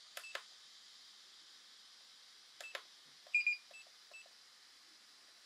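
DJI FPV drone booting up: its cooling fan runs with a steady high hiss while two pairs of sharp clicks sound, then a short run of high beeps, loudest about three seconds in, with a few softer beeps after.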